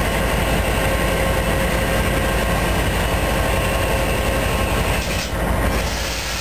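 A train rolling past close by: the steady rumble and rail noise of the cars on the track, with a faint steady ringing tone over it. The sound shifts a little past five seconds in.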